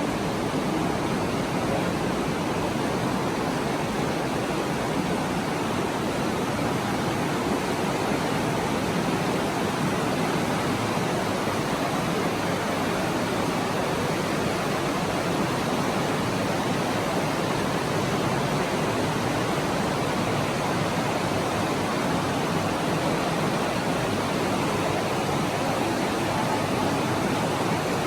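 Steady rushing of water, like a stream running through a cave: an even, unbroken hiss.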